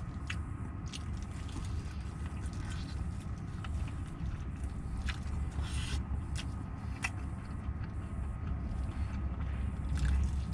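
Crunching bites and chewing of fried chicken, with small irregular clicks and crackles, over a steady low rumble.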